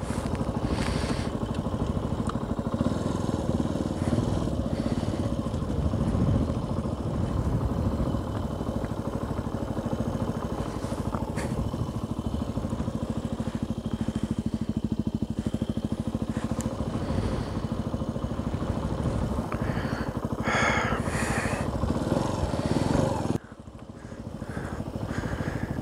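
Benelli TNT 125's 125 cc single-cylinder engine running at low revs as the motorcycle moves slowly along a gravel lane. The sound drops sharply a couple of seconds before the end, then slowly builds again.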